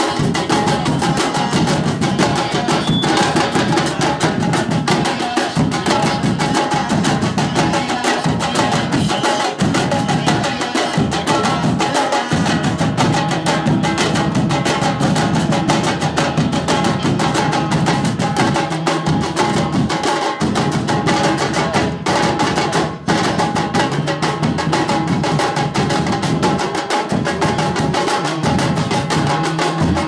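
Afro-Brazilian percussion group drumming: tall painted surdo-style bass drums beaten with mallets and smaller drums played with sticks, in a loud, continuous, dense groove.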